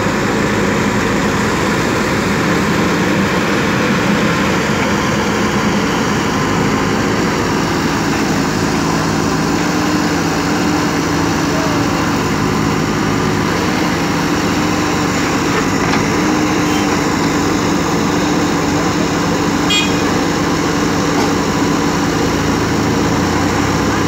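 JCB backhoe loader's diesel engine running steadily and loudly while the machine works, its low tone shifting a little as it manoeuvres and lifts its loader bucket.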